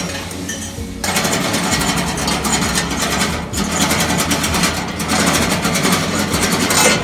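A machine running with a fast, even mechanical clatter, getting louder about a second in.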